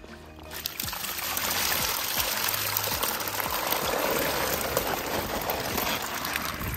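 Water pouring and splashing in a steady rush that starts about half a second in and drops away near the end.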